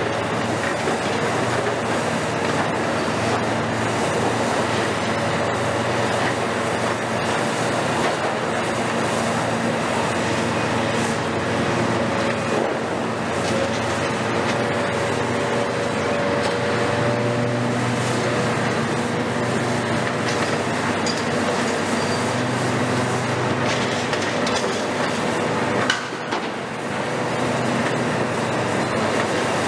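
Diesel engine and hydraulics of a long-front demolition excavator (a KMC 400 built on a Hitachi ZX350LC-6) running steadily under load, the engine note shifting as the boom and tool work. Faint metallic clicks run through it, and there is a short knock with a brief drop in level near the end.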